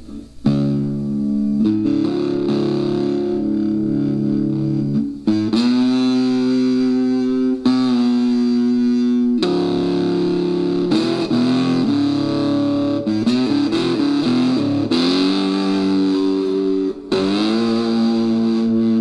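Electric cigar box guitar played through a small homemade cigar box amplifier: picked notes and chords ring out through the amp's speaker, starting about half a second in and changing every second or two, with a couple of brief breaks.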